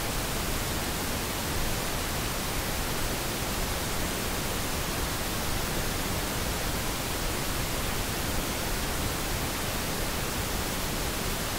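Pink noise played as a demonstration signal: a steady, even hiss with all frequencies mixed together.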